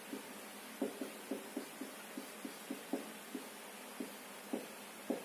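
Felt-tip marker writing on a whiteboard: a quick run of short tapping and scratching strokes, a few a second, over a steady faint hiss.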